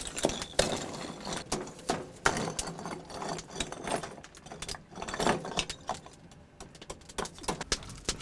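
Irregular clinks and knocks of chunks of river ice being handled for melting into drinking water.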